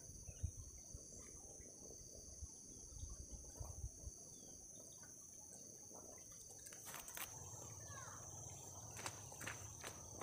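Insects droning steadily in a high, even tone, with scattered soft low thumps early on and sharp clicks in the second half.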